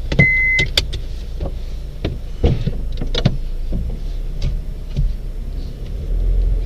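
Inside a car's cabin: a steady low engine hum as the car starts to pull away, with a short high electronic beep just after the start and a scatter of clicks and knocks in the first few seconds.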